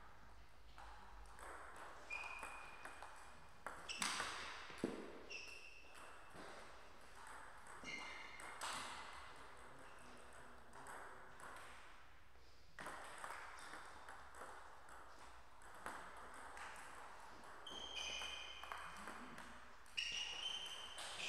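Table tennis ball clicking off the bats and the table in short rallies, with quiet pauses between points.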